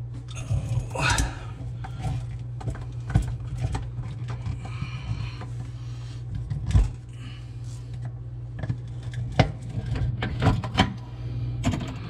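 A quarter-inch nut driver working a small screw loose from the plastic floor of a dishwasher tub: scattered clicks, scrapes and rubbing over a steady low hum. The screw is stiff with built-up gunk.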